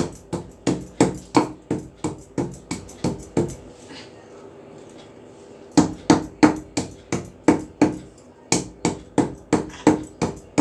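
Pieces of dry ginger being pounded on a flat stone grinding slab (sil-batta): sharp, even knocks about three a second, with a pause of about two seconds midway.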